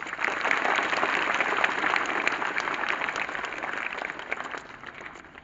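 A group of people clapping their hands in applause, starting suddenly and dying away over the last second or so.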